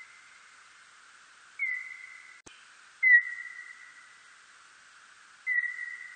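Calls of a 멧박쥐 (birdlike noctule bat), made audible: three whistle-like calls about two seconds apart, each starting sharply and then fading over about a second, over a steady hiss. The middle call is the loudest.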